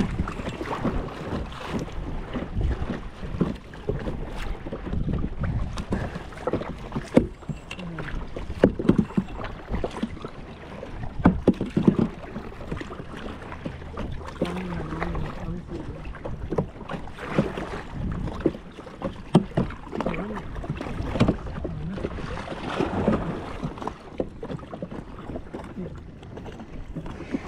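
Kayak paddling: paddle blades splashing in the water with irregular knocks, and wind on the microphone.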